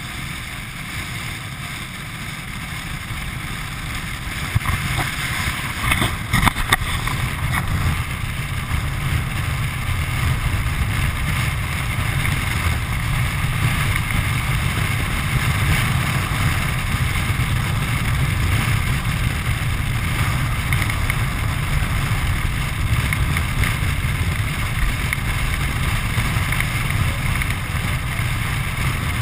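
Land sailing cart rolling fast over a hard dry lake bed, with wind buffeting the microphone and the frame rattling. The noise grows louder over the first six seconds or so, with a few sharp knocks about five to seven seconds in.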